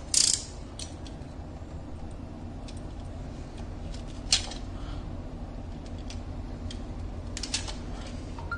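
Small hand cutter snipping and handling optical fiber pigtails: a short scraping burst at the start, one sharp click about four seconds in and a couple more near the end, with faint ticks between, over a steady low hum.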